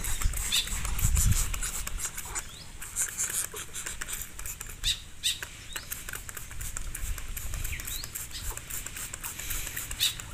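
Plastic hand-trigger spray bottle squirting water in quick, repeated short spritzes onto a greater coucal's feathers.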